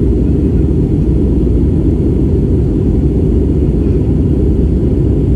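Airliner cabin noise in flight: the steady, deep drone of the engines and rushing air heard from inside the cabin.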